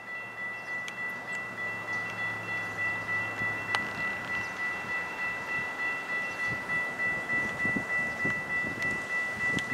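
Railroad grade-crossing warning bell ringing steadily and rapidly, about two to three strokes a second, sounding the warning that a train is approaching the crossing.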